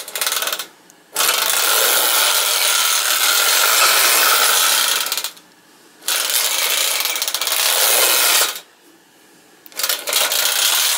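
Clockwork motor of a Mettoy tinplate shunting train running, a loud buzzy whirr of spring-driven gears. It stops three times, for under a second each, and starts again.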